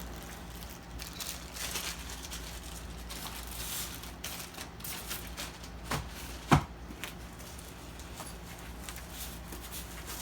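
Handling of oscilloscope test accessories: light rustling and small clicks, with a sharp knock about six and a half seconds in.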